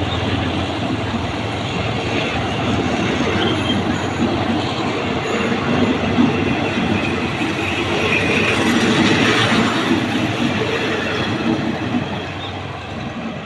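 Train rolling along the rails close by: a steady rumble and clatter of wheels with some wheel squeal, easing off about twelve seconds in.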